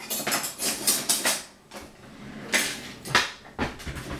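Metal kitchenware clattering: a quick run of knocks and scrapes in the first second or so, then a few more sharp knocks near the end.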